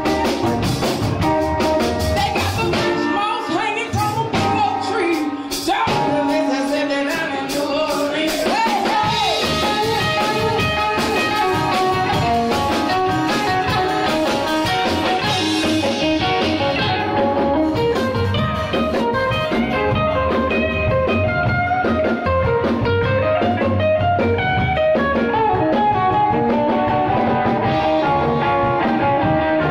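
Background music: a song with guitar and singing.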